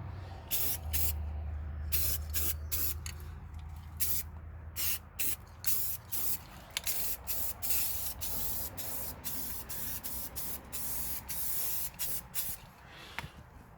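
Spray can of gloss paint being sprayed in many short bursts, about one or two a second.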